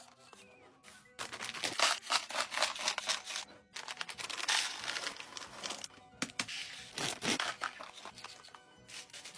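Packaging being handled, with plastic crinkling and a quick run of clicks and small knocks, over background music.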